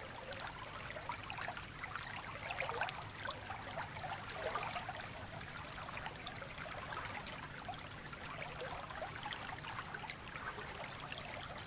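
Shallow stream flowing, heard close to the water's surface: a steady rush with a constant run of small gurgles and trickles.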